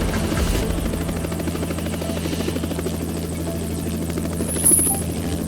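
Steady buzzing hum of a small motor, with a fast flutter, and a brief high-pitched tone near the end.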